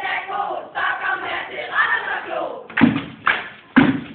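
A small group of women singing together in a loud, raised chorus, then, near the end, three loud sharp thumps about half a second apart.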